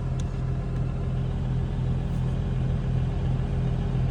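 A steady, low mechanical drone of an engine running at a constant idle, unchanging in pitch.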